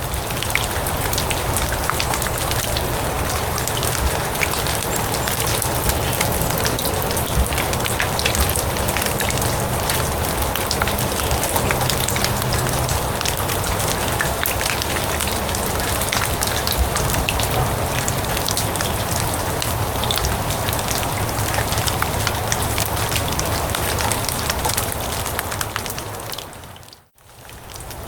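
Steady rain falling on grass, a dense patter of drops. About a second before the end it fades out to a brief silence and then fades back in.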